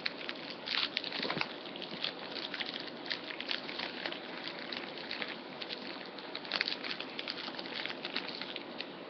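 Rockets candy (small pressed sugar tablets) being eaten: irregular crisp crunching clicks, bunched most densely about a second in and again near two-thirds of the way through.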